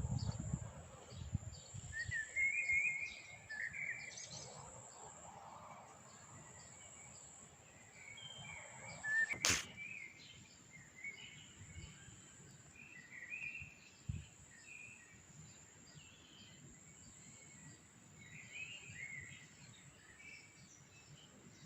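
Small songbirds chirping in short, scattered calls over a faint steady high insect hum, with one sharp click about nine and a half seconds in.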